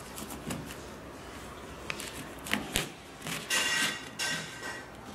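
A knife cutting the packing tape on a cardboard parcel: a few sharp clicks, then scraping and rasping of tape and cardboard about two-thirds of the way through.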